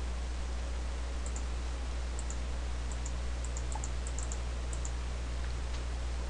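Computer mouse button clicking: small, sharp double clicks (press and release), about ten of them, bunched together a few seconds in. Under them runs a steady low electrical hum.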